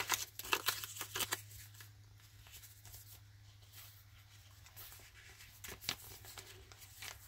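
Paper pages of a handmade junk journal rustling and rubbing as hands turn them, with a flurry of soft rustles in the first second or so, then only a few faint ticks.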